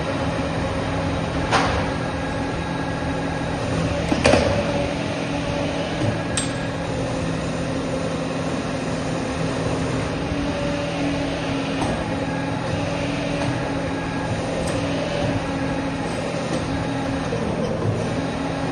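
Automatic J-hook wire bending machine running: a steady motor hum with a few sharp metal clicks, the loudest about four seconds in.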